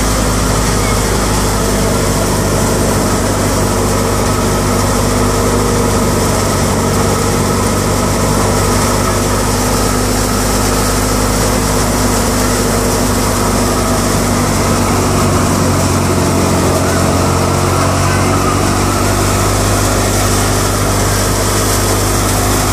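Tractor-driven threshing machine running steadily while dry crop plants are fed into it, the tractor engine and the spinning drum making one continuous, even din.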